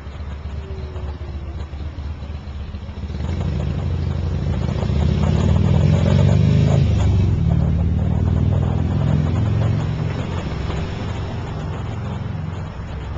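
Street traffic at an intersection: a motorcycle engine swells as it passes close by, loudest around the middle, then eases off, with cars running behind it.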